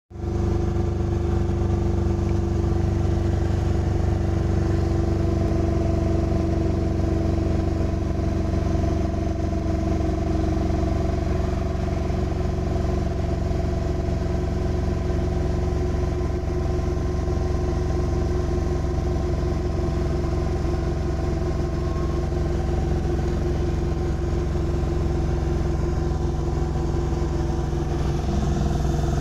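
Heavy vehicle's diesel engine running steadily as it drives along. It is heard from inside the cab, with road and wind noise over an even drone that neither rises nor falls.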